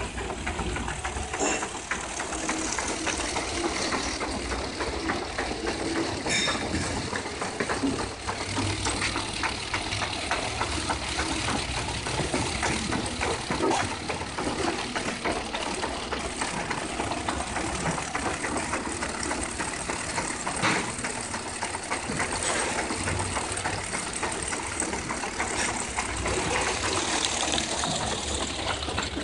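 Diehl veneer splicer running steadily while it feeds a sheet of wood veneer through its splicing head, a continuous machine hum with rapid ticking.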